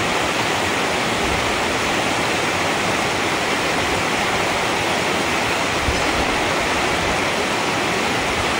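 River water rushing, a steady even noise.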